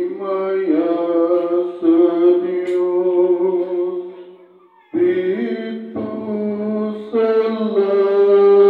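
A priest chanting a liturgical prayer into a microphone over the church's loudspeakers, a man's voice holding long steady notes. The phrase trails off about four seconds in and a new one starts about a second later.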